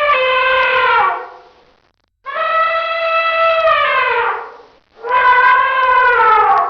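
Elephant trumpeting: three long calls of about two seconds each, each sliding down in pitch at its end. The first call is already sounding and fades about a second in, and the last is cut off at the end.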